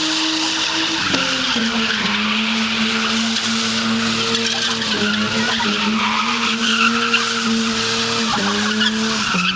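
Opel Manta's 3.0-litre 24-valve engine held at high revs while its tyres spin and screech in a burnout. The revs drop a step about a second in, then dip briefly twice, near the middle and near the end.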